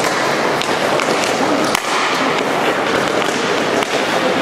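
Inline roller hockey in play: a steady rush of skate wheels rolling on the court floor, with scattered sharp clacks of sticks and puck.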